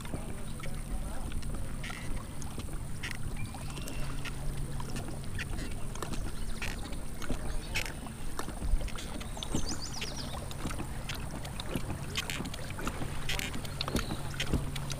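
Ambience from a kayak on calm water: small splashes and drips of water with scattered light clicks, and a few birds calling now and then.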